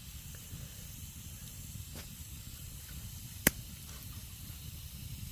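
Campfire under a cooking grill hissing softly, with a sharp crackling pop about three and a half seconds in and a fainter one about two seconds in.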